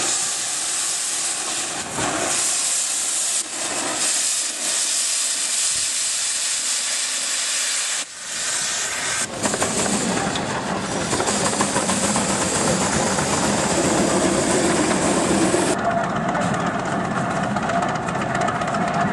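Steam traction engines hissing loudly as they vent steam. The first blows off a tall plume in a steady hiss. From about nine seconds in, the sound becomes fuller and lower-pitched as a second engine, with steam escaping low down, moves along. Near the end the sound changes again as an antique tractor drives past.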